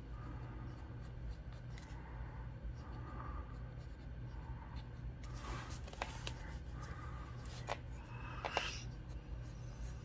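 Pencil scratching on sketchbook paper as lines are drawn along a plastic ruler, with a few sharp clicks between about five and nine seconds in as the ruler is handled and moved.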